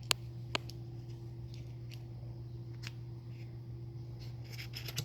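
A few light clicks and taps of dryer drum roller parts being handled, with a small cluster of them near the end, over a steady low hum.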